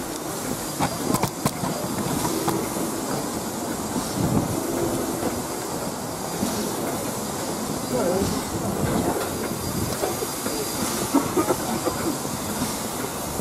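Steam locomotive 45231, an LMS Black Five 4-6-0, standing at a platform and hissing steam. Mixed with it are the voices and footsteps of a crowd walking past, and a few sharp clicks about a second in.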